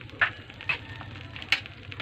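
A few short sharp clicks of a utensil knocking a metal cooking pot, the loudest about one and a half seconds in, as spaghetti is mixed into tomato sauce. A steady low hum runs underneath.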